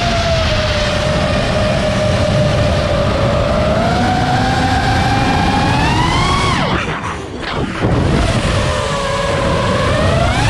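FPV racing quadcopter's brushless motors (Hypetrain 2306 2450kv) whining, the pitch gliding up and down with the throttle: a sharp climb about six seconds in, a brief drop and dip in level, then another climb near the end. A rough wind rumble runs under the whine.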